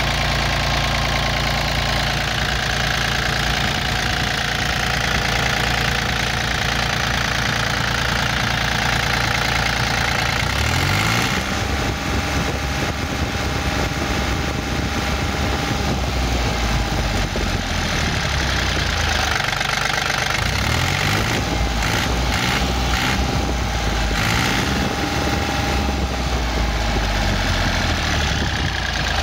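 Yanmar F215D compact tractor's three-cylinder diesel engine running steadily at idle.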